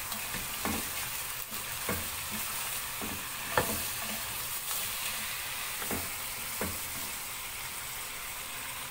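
Chicken, vegetables and spices sizzling in butter in a granite-coated pot while a wooden spoon stirs them, with a steady hiss and a few short knocks and scrapes of the spoon against the pot, the sharpest about three and a half seconds in.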